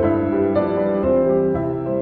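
Instrumental background music with piano, held chords changing about every half second.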